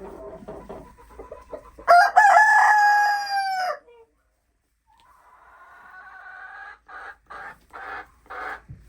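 Rooster crowing loudly once, about two seconds in, over low clucking from hens. After a short silence come fainter chicken calls and a run of short repeated clucks near the end.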